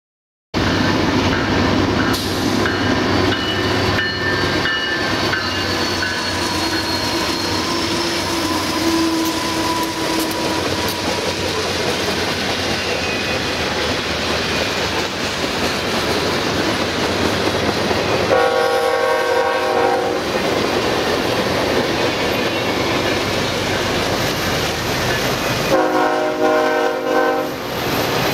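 Norfolk Southern freight train rolling past close by, a steady rumble of wheels on rail with high squealing tones in the first several seconds. A locomotive horn sounds a short blast about two-thirds of the way through and again near the end.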